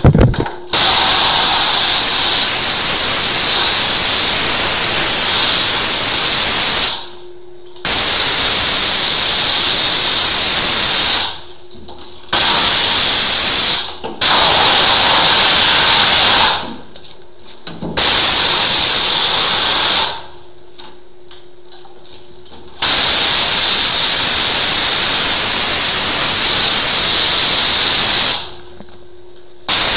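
High-pressure washer jet spraying the floor and walls of a sump pit with a loud, steady hiss. The spray stops and restarts six times, the gaps lasting from a moment to a couple of seconds.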